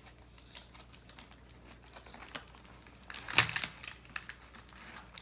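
Clear plastic toy packaging being pried open and handled by small hands: a run of light clicks and crinkles, with a louder clatter of plastic a little over three seconds in.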